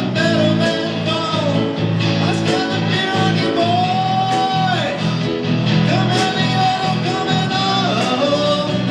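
Live band playing a rock song, a singer holding long notes over the band.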